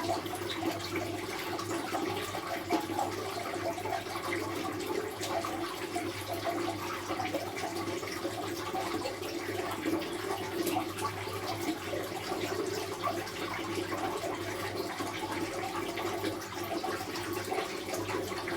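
Steady rushing water, an unbroken flow, over a constant low hum.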